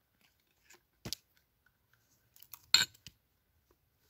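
Hatchet chopping into wood to square off a mallet handle: two sharp chops about a second and a half apart, the second louder, with a few lighter knocks and ticks around them.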